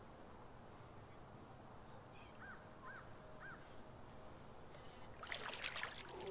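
A hooked bass thrashing and splashing at the surface beside the boat, in quick sharp splashes that grow louder over the last second or so. Earlier, three short high chirps come about half a second apart over faint background noise.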